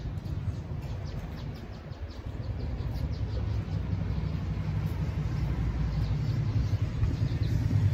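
Wind buffeting a phone's microphone, a low fluttering rumble that grows stronger after about two seconds.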